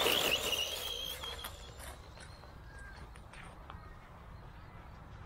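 Small RC truck's 390 brushed electric motor whining, with tyre noise over grass, as it passes close; the sound fades over the first couple of seconds as the truck drives off, leaving only faint background.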